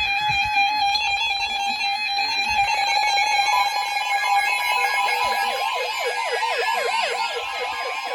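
NOAA weather radio alert alarms going off for a received severe thunderstorm warning. A steady harsh tone sounds first. About four seconds in, a fast warbling siren of quickly repeated falling sweeps joins it.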